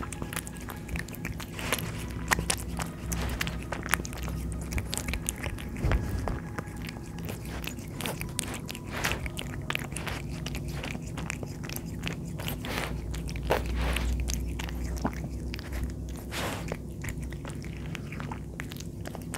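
A cat eating wet food chunks in sauce from a saucer, close to the microphone: wet chewing and mouth sounds with many sharp, irregular clicks.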